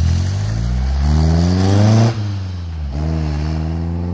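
1971 Toyota Celica's 2T-B four-cylinder, on Solex carburettors from a 2T-G and the stock exhaust, accelerating away hard. The engine note rises for about two seconds, drops sharply at an upshift, then climbs again more slowly in the next gear.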